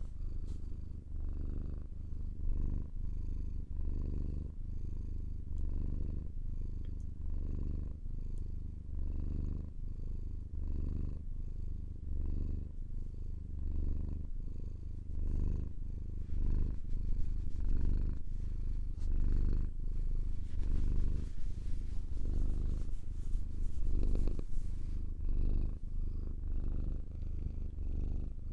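Domestic cat purring close up, a low, steady purr that swells and ebbs with each breath about once a second. A few seconds of rustling hiss come about two-thirds of the way in.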